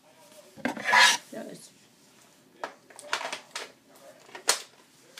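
Plastic clacks and scraping from a Nerf blaster being handled and worked: a louder scrape about a second in, then several short, sharp clicks.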